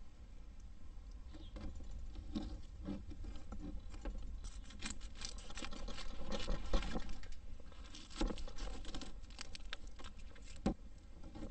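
A knife working on a plastic cutting board while dry onion skin is cut and peeled: a run of quick taps and papery crackles, thickest in the middle.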